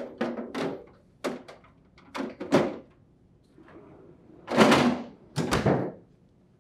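Plastic ice container set into a refrigerator's freezer drawer with several quick knocks and scrapes, then the freezer drawer is pushed shut on its slide rails, the loudest sound, about four and a half seconds in.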